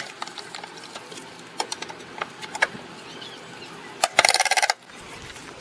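Sharp metallic clicks and knocks as an analog electric meter is pushed into its socket and fastened, with a fast rattling run of clicks about four seconds in.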